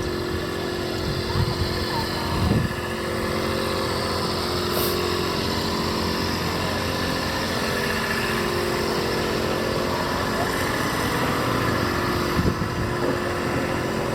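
A vehicle engine running steadily at an even speed, a constant drone with no revving.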